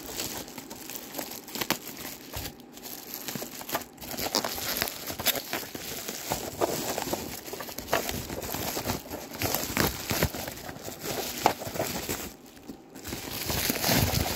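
Bubble wrap crinkling and crackling as it is pulled off and unwrapped by hand, with irregular crackles throughout and brief lulls about two and a half seconds in and near the end.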